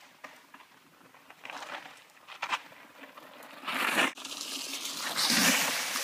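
Mountain bike tyres rolling over a wet dirt trail, crackling and getting louder as the bike approaches. There are two loud rushes of noise, one about four seconds in and a longer one near the end, as the bike ploughs through a muddy puddle and sprays water.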